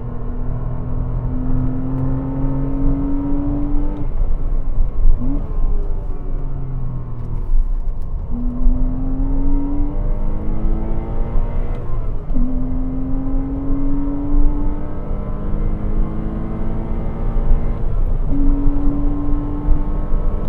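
Porsche Cayman 987's 2.7-litre flat-six engine under hard acceleration on track, revs climbing and dropping at each gear change. About four seconds in it comes off the throttle and the revs fall, with a short sharp blip of revs on a downshift. Then it pulls up through the gears again, over steady road and wind noise.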